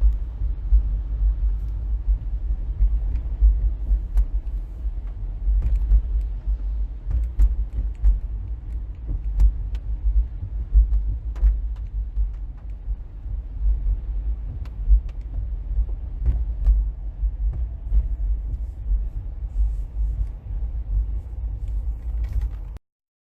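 Wind buffeting the microphone in a snowstorm: a heavy, gusting low rumble with a few faint ticks. It cuts off suddenly near the end.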